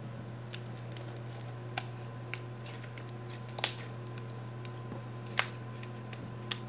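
Homemade slime being stretched and squeezed between the hands, giving about seven small sharp pops and clicks, scattered at uneven intervals, the louder ones in the middle and near the end.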